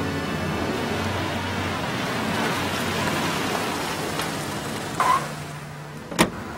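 A car drives up on a wet road with a steady tyre hiss and stops with a brief squeal. About a second later a car door clicks open sharply.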